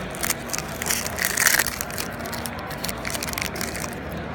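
Hockey trading cards and their foil pack wrappers being handled: rapid crinkling and rustling, loudest about a second and a half in.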